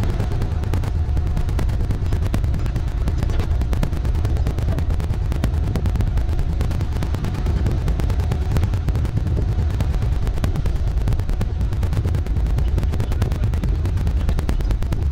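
Wind buffeting the microphone on the open deck of a moving trawler: a loud, steady low rumble with constant crackle.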